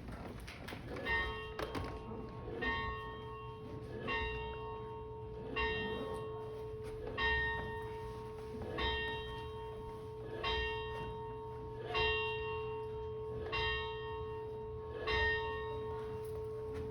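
A single large bell tolling, struck about ten times at an even pace of roughly one stroke every second and a half. Each stroke rings on into the next, so a steady hum holds underneath.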